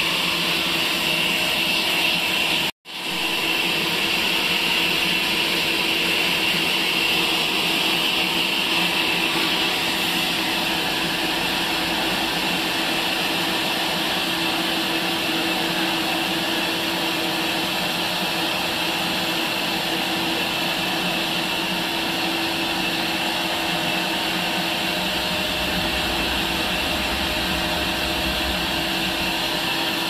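Electric horizontal band sawmill running steadily: a constant motor hum with a high whine over it. The sound cuts out for a moment about three seconds in, then resumes unchanged.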